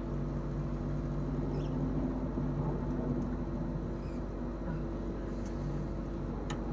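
Daikin Cora split system's outdoor unit running with a steady hum made of several constant low tones. A light click near the end.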